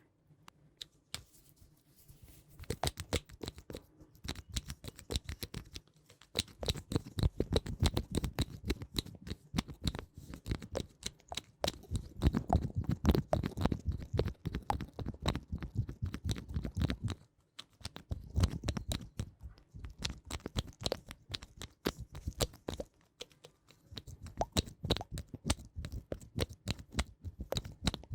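Close-up ASMR handling sounds right at the microphone: dense crackling, scratching and rubbing with a low rumble, coming in stretches of several seconds with short pauses between them.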